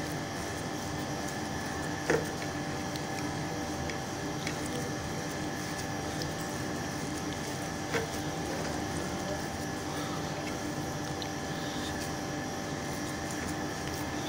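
A steady machine hum with several fixed tones, like a fan or other running appliance, under hands rubbing and kneading warm crumbly chhena against a ceramic plate. Two light knocks, about two seconds in and again about eight seconds in.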